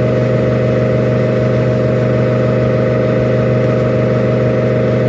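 Steady, loud mechanical hum of a running motor: a low drone with overtones that does not change.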